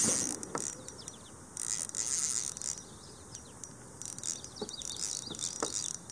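Spinning reel being cranked in short bursts of high whirring, with pauses between, as a hooked common carp is reeled in on light tackle; a few light knocks in between.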